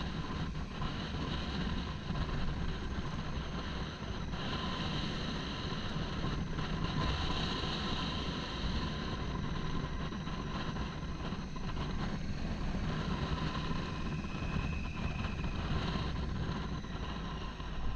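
Motorcycle running steadily at road speed, engine drone mixed with wind and road noise at a helmet-mounted camera.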